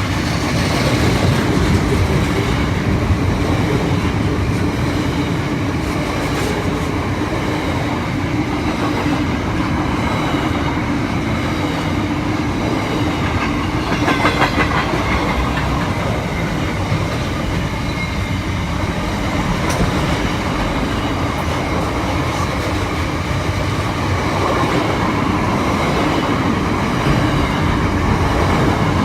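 Train wagons rolling past with a steady rumble, wheels clicking over the rail joints, with a quick run of clicks about halfway through.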